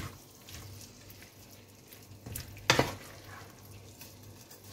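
Wooden spatula stirring and turning diced chicken with peppers and corn in a frying pan over a low sizzle, with a few short scrapes against the pan, the loudest about two and a half seconds in.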